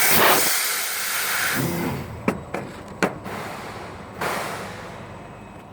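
Fiber laser cutting machine at work: assist gas hissing loudly from the cutting head, easing off about two seconds in. Two sharp clicks follow, then a shorter burst of hiss that dies away.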